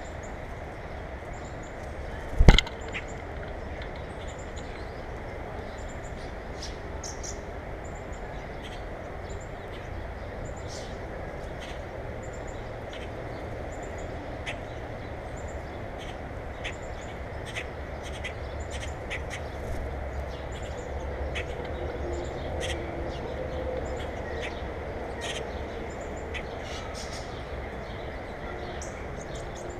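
Small birds chirping at a bird feeder, short high calls scattered throughout over a steady low rumble that swells slightly in the second half. A single sharp knock, the loudest sound, comes about two and a half seconds in.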